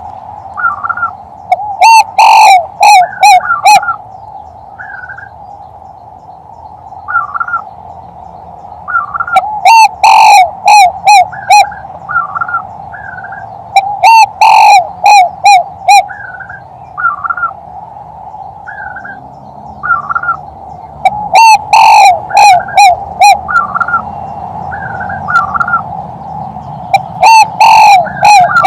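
Male spotted dove (tekukur) giving its cooing 'kuk-3' call, a lure call for hunting: five phrases of several quick notes each, spaced a few seconds apart and loud enough to distort. A steady drone and small short chirps run behind it.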